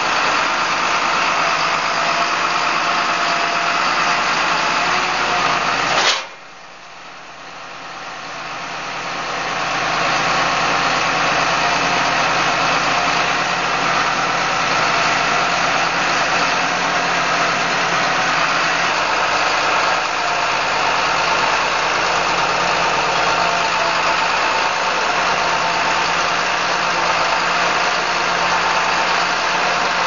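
John Deere 8410T track tractor's six-cylinder diesel engine running steadily as it drives up the ramps onto a trailer, with one sharp knock about six seconds in.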